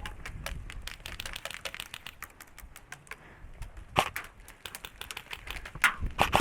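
Airsoft gunfire: rapid irregular clicks and snaps, with a louder sharp crack about four seconds in and more near the end.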